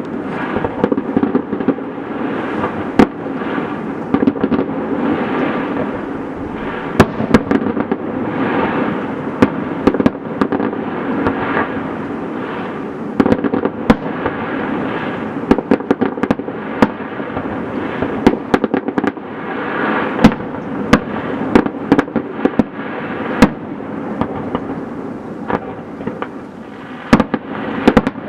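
Fireworks going off: many sharp bangs and crackles, at times several a second, over a continuous rumble.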